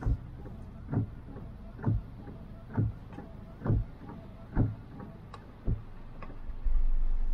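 Short, even thumps about once a second from inside a car in the rain, over a low steady hum; near the end a louder steady vehicle noise sets in abruptly.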